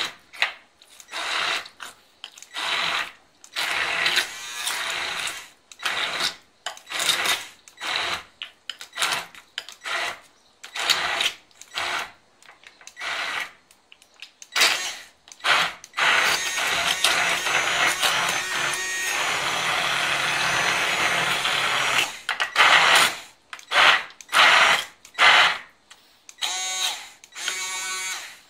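KitchenAid Pro Line cordless hand blender running at speed 4, its two-prong blade chopping a thick, chunky mixture. It runs in short pulses, a little over one a second, then runs without a break for about six seconds past the middle, then pulses again near the end.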